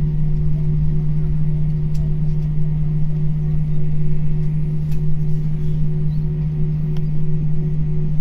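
Airbus A321 cabin noise while taxiing with the engines at idle: a steady low-pitched hum with a fainter higher tone over a low rumble from the rolling airframe.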